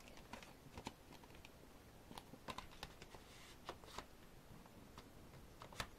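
Faint, scattered clicks and taps of a clear plastic CD jewel case being handled.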